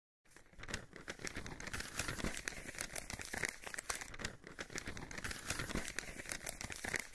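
Parchment rustling and crinkling: a dense crackle of small sharp clicks that starts a moment in and goes on evenly.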